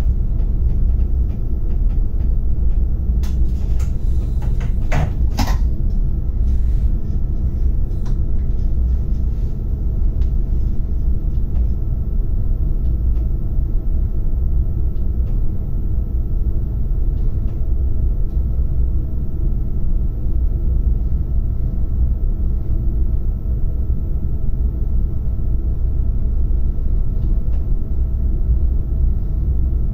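A Domino RBDe 560 electric multiple unit running, heard from the driver's cab: a steady low rumble of wheels on rail with a faint steady whine over it. A short run of clicks and knocks comes about three to six seconds in.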